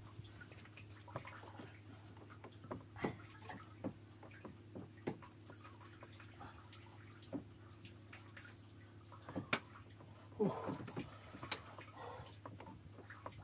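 Water lapping and dripping against the hull of a small wooden boat, with scattered light knocks and taps as a fishing handline is handled over the side, the loudest about ten seconds in. A faint steady low hum sits underneath.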